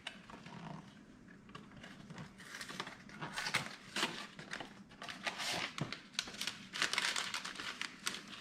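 Foil-lined paper packets of Lipton onion soup mix crinkling as they are handled and opened, in irregular rustles that grow busier about halfway through.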